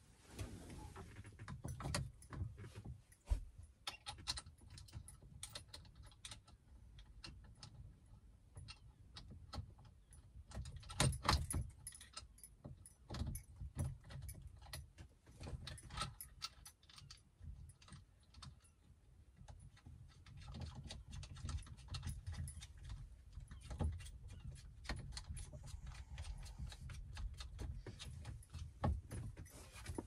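Irregular small metal clicks and clinks of bolts, spring washers and the steering lock housing being handled and fitted by hand on a VW Transporter T5 steering column, with low handling bumps; a run of louder clicks about eleven seconds in.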